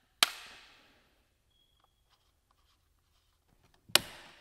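Two sharp metal clicks, each ringing out briefly, about four seconds apart, as an Allen key works the magazine bolts of a Milwaukee M18 cordless framing nailer.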